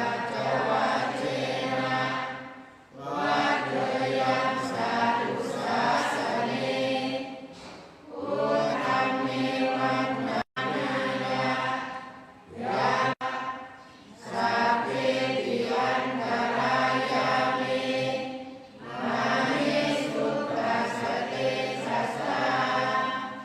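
Thai Buddhist evening chanting: a group of voices chanting Pali verses in unison in a low, even recitation. The chant comes in phrases of two to five seconds separated by short pauses, with two very brief dropouts in the audio near the middle.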